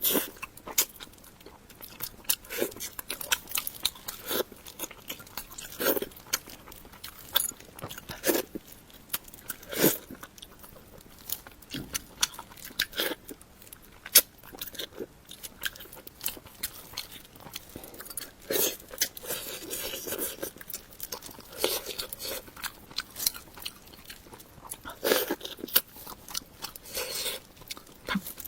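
Close-miked eating of a salmon head: irregular crunching bites and chewing.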